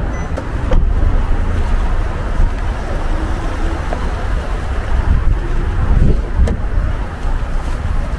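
Wind buffeting the microphone in a low, uneven rumble, with a couple of faint clicks.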